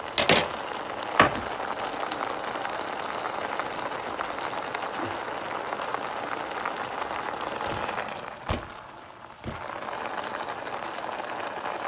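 Leftover water sizzling and crackling in the bottom of a stainless pot of drained boiled potatoes as it boils off on the stove; the sizzle stops once the water is gone. A few light knocks, and the sizzle dips briefly about nine seconds in.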